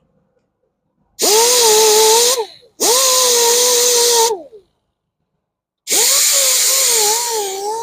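Grinder with a conditioning disc sanding the curb-rashed edge of an alloy wheel rim in three bursts, starting about a second in, the motor winding down each time the trigger is released. The pitch wavers in the last burst as the disc is worked along the rim.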